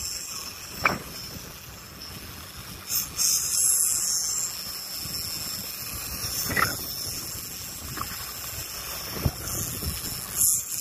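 Steady wind and sea noise on a boat offshore: wind on the microphone and chop washing along the hull, with a hiss that swells for a second or so about three seconds in, and a few short knocks.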